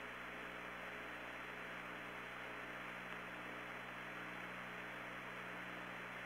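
Steady radio hiss with a low electrical hum on the Apollo 16 air-to-ground communications recording, with no one transmitting.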